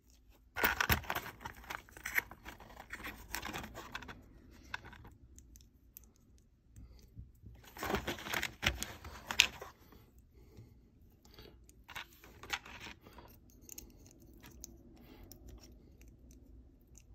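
Paper packaging of a Lego minifigure rustling and tearing in two spells, one starting about half a second in and one around eight seconds in. Between and after them come small plastic clicks and taps as the minifigure pieces are handled and pressed together.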